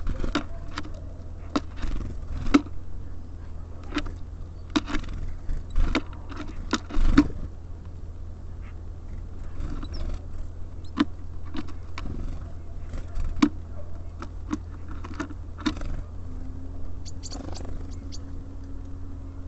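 Small birds (tits and sparrows) pecking and hopping about a bird feeder: irregular sharp taps, clicks and scrapes over a steady low rumble. A steady low hum joins near the end.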